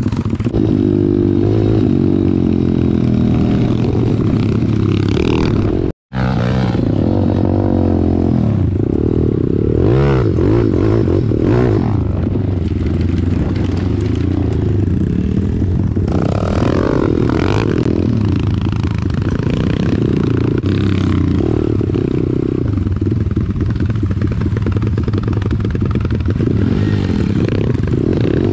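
Pit bike engines running while riding a dirt trail, the note rising and falling with the throttle, with the bike clattering over the ground. The sound drops out for an instant about six seconds in.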